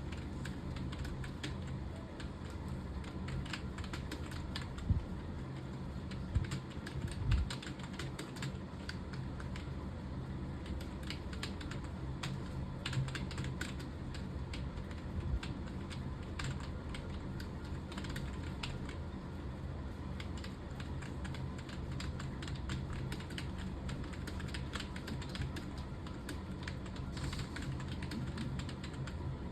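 Computer keyboard being typed on at a steady pace: a continuous run of quick key clicks, with a few heavier thumps about five to seven seconds in, over a steady low hum.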